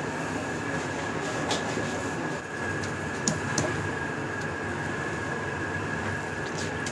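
Steady mechanical drone with a thin high whine held throughout, and a few faint light clicks.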